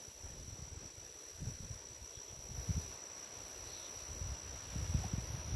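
A steady, high-pitched insect trill in the reeds, unbroken throughout, over irregular low rumbles.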